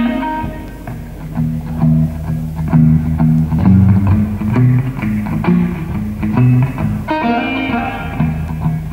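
Live blues-rock band playing an instrumental: electric guitar chords and licks over a moving bass line, with loud guitar chord stabs at the start and again about seven seconds in.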